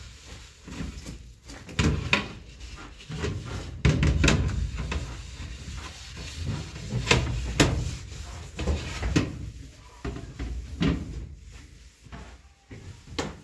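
Irregular knocks, clatters and thumps of fridge drawers, shelves and plastic containers being handled and set down.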